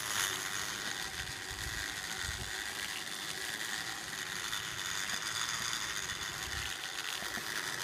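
Sky bicycle running along its overhead steel cable: a steady mechanical whir of the pedalled drive and pulleys, with a few low rumbles of wind on the microphone.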